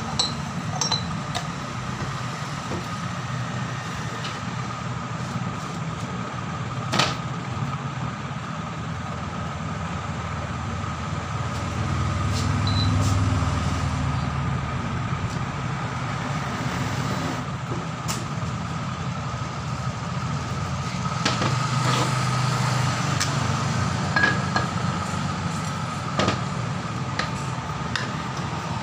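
Steady low background hum with a thin high tone running through it, swelling for a couple of seconds around the middle. Scattered sharp metal clicks and taps come through as the parts of an air impact wrench's hammer mechanism are handled and fitted into their case.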